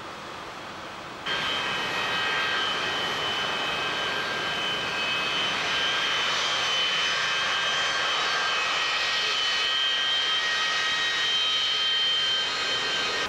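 Pratt & Whitney JT8D turbofans of a taxiing McDonnell Douglas DC-9 running with a steady whine, several high tones over a rushing noise. It comes in suddenly about a second in.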